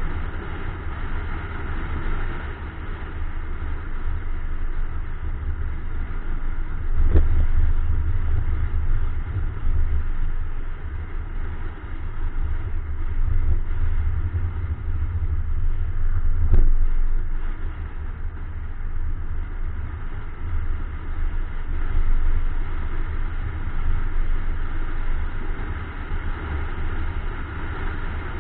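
Wind buffeting the microphone of an action camera mounted on the outside of a moving car, a strong, uneven low rumble over the car's road and engine noise. Two brief knocks come through, about seven and about sixteen seconds in.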